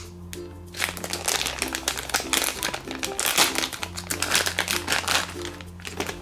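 Plastic squishy packaging bag crinkling and rustling as it is handled and pulled open to take the toy out, in dense irregular crackles.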